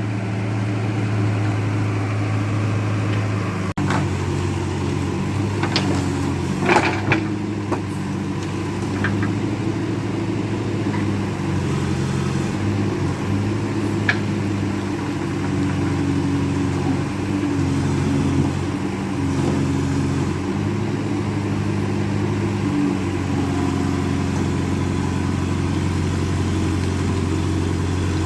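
JCB backhoe loader's diesel engine running steadily, its note stepping up and down several times. A few sharp knocks and clatters come about four to eight seconds in, and one more near the middle.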